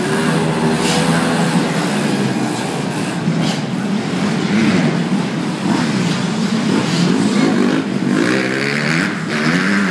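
Small dirt bike engines revving up and down as the bikes race over the jumps, the pitch rising and falling again and again every second or so, with more than one bike heard at once. The sound echoes inside a large arena.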